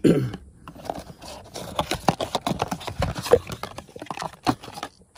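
Plastic packaging and small parts of an aftermarket throttle controller being handled and unpacked: irregular rustling, scraping and light clicks.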